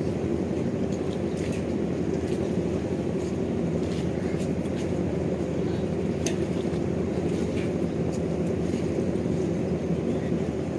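Steady low rumble of a vessel's engine running, even and unbroken, with a few faint distant voices or clicks over it.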